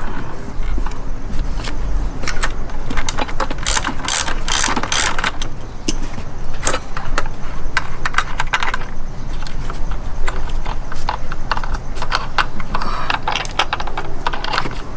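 Hand ratchet wrench clicking in quick runs as bolts are loosened.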